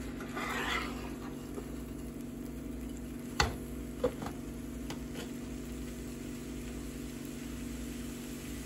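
Metal slotted spatula stirring chopped vegetables in a frying pan, with two sharp knocks of the spatula about three and a half and four seconds in, over a steady low hum.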